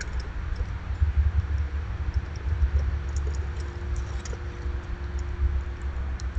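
Outdoor ambience at a winter feeding station: a low, uneven rumble on the microphone, with scattered faint light ticks and clicks and a faint steady hum underneath.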